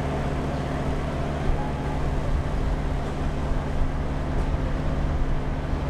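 Delivery box truck's engine idling with a steady low hum.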